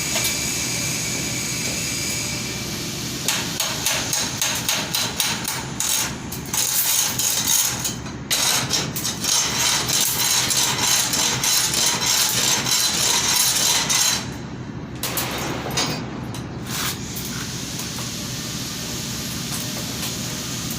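Metalwork during welding: rapid sharp metallic strikes and crackling that start about three seconds in, run dense and loud until about fourteen seconds, then drop to a quieter steady noise with a few more strikes.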